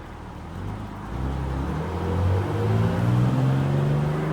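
1958 GMC PD-4104 Greyhound bus's Detroit Diesel engine accelerating, its pitch climbing steadily as it grows louder.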